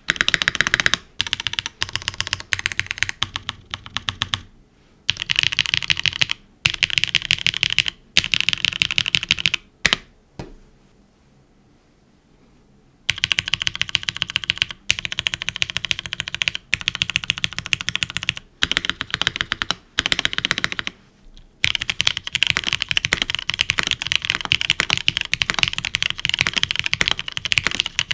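Fast typing on a Neo75 Cu mechanical keyboard with an aluminium plate, gasket mount, no foam and GMK keycaps: dense runs of keystrokes in short bursts, broken by brief pauses. The first part is on Kailh BCP switches; after a quiet pause about ten seconds in, the typing goes on with broken-in Cherry Nixie switches.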